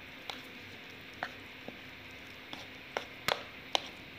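Steel spoon stirring maida and water into a crumbly jalebi batter in a bowl: scattered, irregular clicks and taps of the spoon against the bowl over a faint steady hiss.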